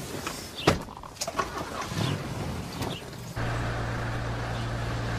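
A car door shuts with a sharp thud about a second in, among some handling and shuffling. At about three and a half seconds the sound cuts to a vehicle engine running with a steady low hum.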